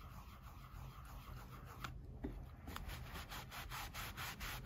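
A cloth rubbing dye over the coated leather of an Apple iPhone 12 leather case. It starts as a soft, faint rubbing, then becomes quick back-and-forth strokes, about six a second, in the second half.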